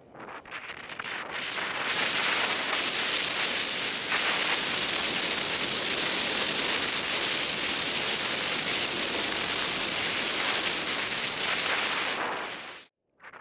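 Rushing wind on a helmet camera's microphone mixed with skis hissing through powder snow on a fast downhill run. The hiss builds over the first two seconds, holds steady and loud, then cuts out abruptly for a moment near the end.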